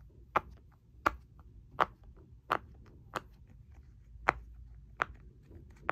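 Silicone bubbles of a pineapple marble pop-it fidget being pressed one by one, about eight sharp pops roughly every 0.7 seconds.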